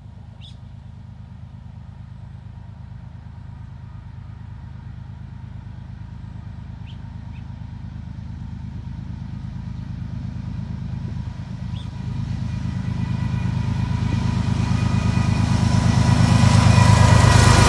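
Diesel locomotives of a CN freight train approaching: a steady low engine drone that grows louder throughout, turning fuller and brighter near the end as the lead locomotive passes close by.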